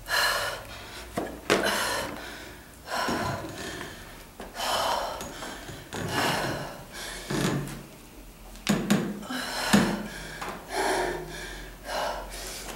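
A woman breathing hard while exercising, with a forceful gasp or exhalation about once a second, and a few sharp knocks in between.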